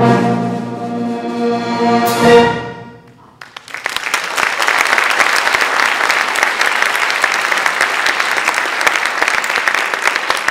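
A high school symphonic band holds the full final chord of a march, closing on a loud accented hit about two seconds in that rings out into the hall. About a second later the audience starts applauding and keeps clapping steadily.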